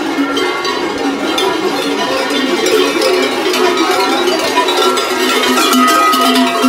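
Large metal cowbells worn at the waist by masked carnival figures, clanging continuously as the wearers move, several bells ringing over one another with a sustained metallic ring.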